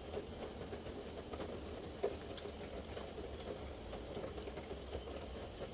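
Faint clicks and light rustling of small plastic mini-drone parts being handled and pushed into place, with one sharper click about two seconds in, over a steady low hum.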